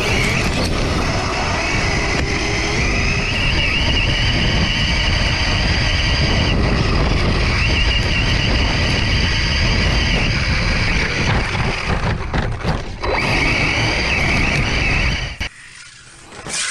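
Arrma Mojave 6S RC truck at full speed: its brushless electric motor whines, the pitch rising and falling several times with the throttle, over a heavy rumble of tyres tearing through dry grass and wind buffeting the side-mounted camera. The noise cuts off sharply about a second before the end.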